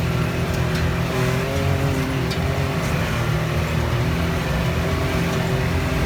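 Side-by-side UTV engine running while driving, its pitch rising and falling slightly with the throttle.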